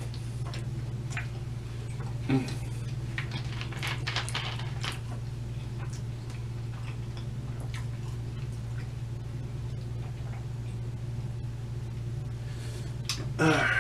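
Soft clicks, crinkles and sloshing from a plastic two-litre soda bottle being handled, opened and drunk from, over a steady low hum.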